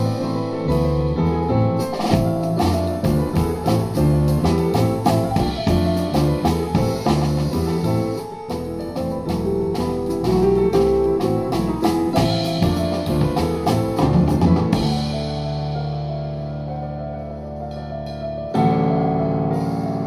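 Live jazz piano trio playing: grand piano, upright double bass and drum kit with busy cymbal and drum strokes. About fifteen seconds in the drums drop out, leaving held low notes that fade, and a fresh loud chord comes in near the end.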